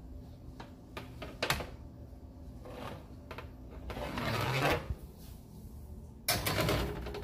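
Metal baking sheet scraping and clattering against a wire oven rack as it is slid into the oven, with a few sharp clanks and a louder rattle near the end.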